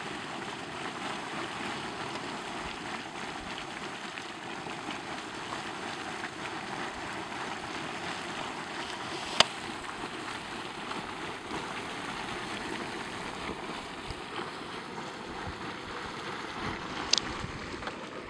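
Steam vent (fumarole) in a geyser basin hissing steadily, an even rushing noise with no pitch. A sharp click sounds about nine seconds in and another near the end.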